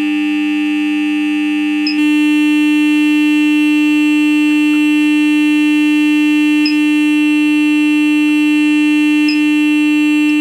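Samsung UA40D6000 TV speaker in its plastic enclosure playing a steady 300 Hz sine test tone, with a noisy, rattly buzz over it: the blown speaker rattles at this frequency. About two seconds in, the buzz changes character and gets slightly louder.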